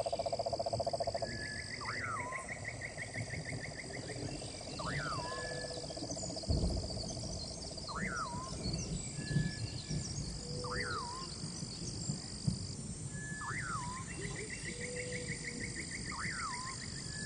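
Wild nature ambience: a steady high-pitched insect drone, under a short call that sweeps sharply up and down, repeated about every second and a half. Now and then comes a fast trill, and a rapid low pulsing, loudest in the first second, fades away.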